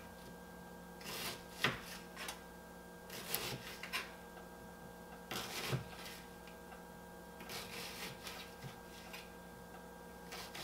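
Kitchen knife slicing an onion on a plastic cutting board: scattered soft chops and scrapes in short clusters, over a steady hum.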